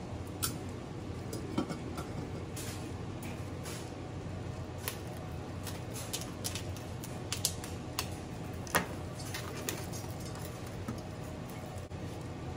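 Chef's knife slicing a bitter melon on a plastic cutting board: irregular knife taps and clicks against the board, a few sharper ones standing out, over a steady low background noise.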